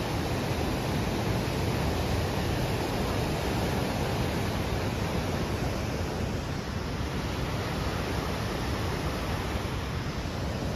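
Steady rushing of a fast mountain river's rapids.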